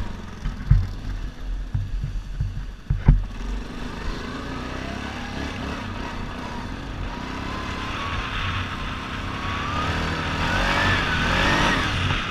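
Yamaha Grizzly 700 ATV's single-cylinder engine running and revving, with heavy irregular thumps in the first three seconds. The revs rise and the engine gets louder near the end.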